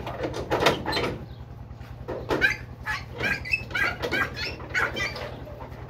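Excited dogs whining and yelping in short, high-pitched calls, over a low steady hum.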